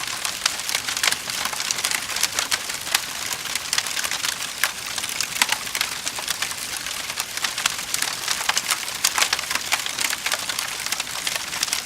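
Wood fire burning in a fireplace, crackling and popping steadily over a soft hiss.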